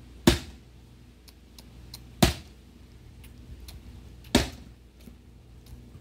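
Axe chopping into a log: three heavy blows, about two seconds apart.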